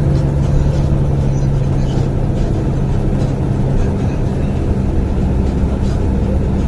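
Bus engine and road noise, heard from inside a moving bus: a steady, loud drone whose low engine tone shifts a little under four seconds in.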